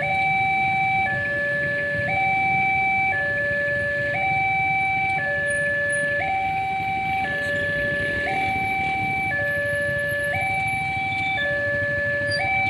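Railway level-crossing warning alarm sounding a two-tone electronic high–low signal, switching pitch about once a second, the signal that a train is approaching. A steady low rumble runs underneath.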